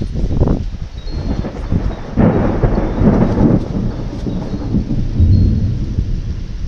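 Thunder rumbling from a nearby lightning storm. A louder crack comes about two seconds in and rolls on for over a second, then it settles back to a low rumble that swells once more near the end.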